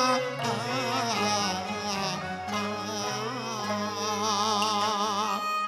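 Cantonese opera song music between sung lines: a wavering melodic line with vibrato over a steady low sustained note.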